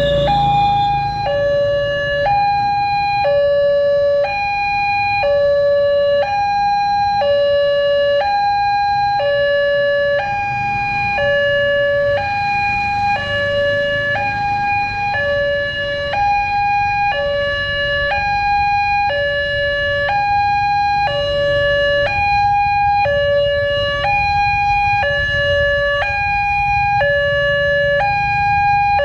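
Electronic railway level-crossing alarm sounding its warning: a two-tone high-low signal that alternates steadily, about one cycle a second, while the crossing is closed for a train.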